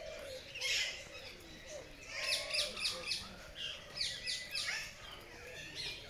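Several birds chirping, with quick runs of short, high, falling chirps about two and four seconds in.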